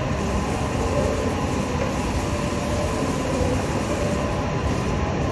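Steady low rumble and hum of airport terminal background noise, with no single event standing out.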